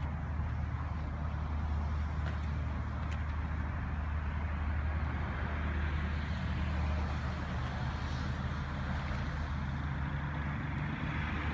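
Steady low motor hum with a constant background wash of noise, like vehicle traffic, unchanging throughout, with a few faint ticks.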